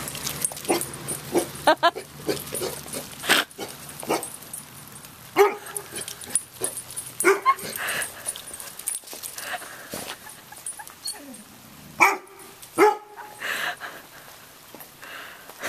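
Chocolate Labrador retriever barking, a string of short single barks a second or two apart with a pause around the middle. It is the wary barking of a dog frightened by roofing materials in the driveway.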